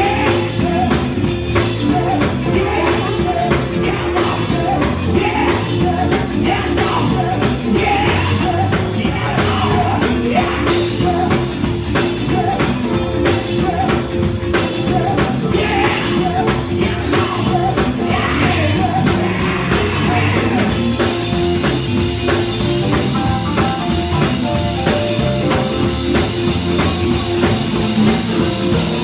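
Loud rock music with a driving drum beat and a singing voice.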